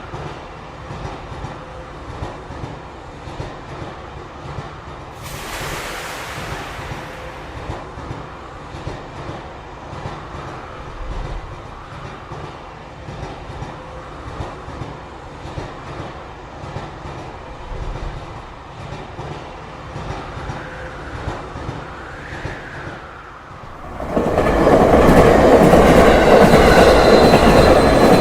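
Train running on rails, a steady rumble with rhythmic wheel clatter and a brief hiss about five seconds in. Near the end it suddenly becomes much louder and denser, with thin high squealing tones.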